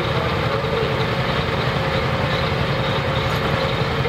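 Super Stock/Pro Stock pulling tractor's diesel engine idling steadily with a low rumble after its pull.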